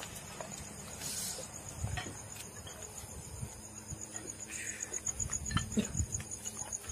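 Crickets chirping in a fast, even, high-pitched pulse that carries on steadily, with footsteps rustling over rubble and through grass beneath it.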